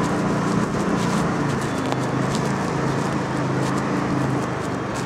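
Motor scooter engine running steadily under throttle while climbing a parking-garage ramp, a low hum over a steady rush of noise.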